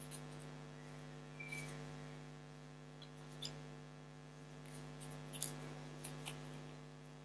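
Faint small rustles and clicks of hands handling wire stems and florist tape, a few scattered ones, over a steady low electrical hum.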